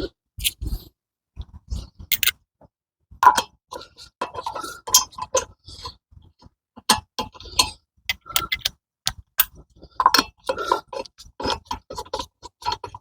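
Irregular metal clinks and knocks from handling a car wheel and its lug nuts while refitting the wheel on its studs, some of them ringing briefly.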